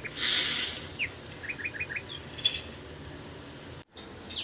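A brief hiss as milk is poured into a hot miniature clay pot of ghee-roasted bread, lasting under a second. Birds chirp in the background afterwards, including a run of four quick chirps.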